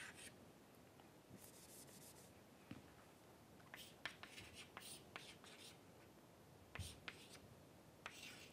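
Chalk writing on a chalkboard: faint, scattered taps and short scratches of chalk strokes, with one longer scratching stroke between one and two seconds in.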